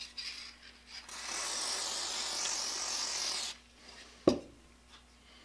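Aerosol can of WD-40 Specialist PTFE dry-film lubricant spraying in one steady hiss lasting about two and a half seconds. A single sharp knock follows about a second after the spray stops.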